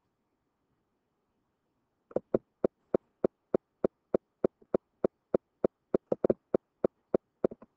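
Computer mouse clicking: a run of sharp, evenly spaced clicks, about three a second, starting about two seconds in.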